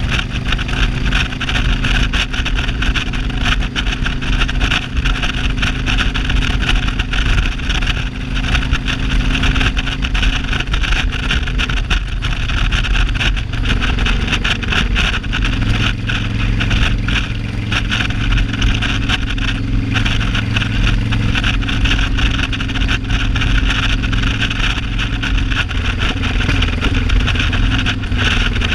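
Cruiser motorcycle engine running at road speed from the rider's seat, with a steady rush of wind. The engine note drops about twelve seconds in and settles at a new pitch near fifteen seconds.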